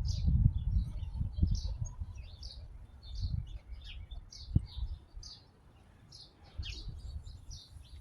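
Small birds chirping over and over, with a low rumbling noise that is loudest in the first second or so and then dies down, and a single thump about four and a half seconds in.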